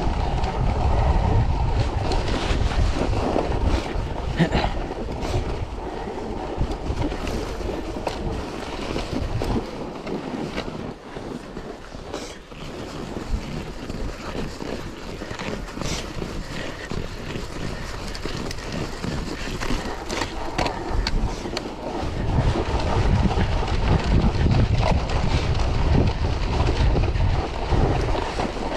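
Wind buffeting the microphone over the rumble of a cyclocross bike's tyres rolling on packed snow, with scattered knocks from bumps. The rumble eases off for several seconds in the middle and grows loud again near the end.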